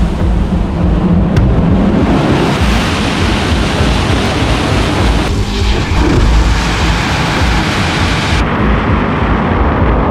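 Paraffin-fuelled hybrid rocket motor firing on a static test stand: a loud, steady rushing roar of exhaust. It changes abruptly about five seconds in and again near the end.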